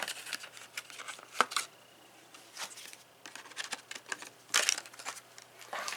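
Handling noise: scattered sharp clicks and short rustles as hand tools are picked up, moved and set down.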